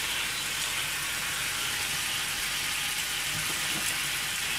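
Oil sizzling steadily in a cast-iron sukiyaki pan with garlic cloves frying in it, a hiss that runs on evenly.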